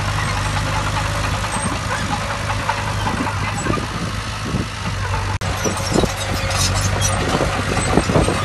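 Diesel engine of a heavy earthmoving machine running steadily at an even pitch, with scattered knocks over it. The sound drops out for an instant about five seconds in.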